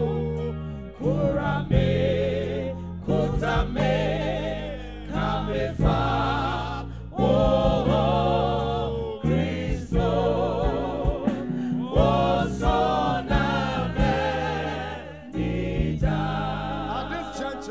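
Gospel worship song: voices singing in phrases with vibrato over held chords from keyboard and bass.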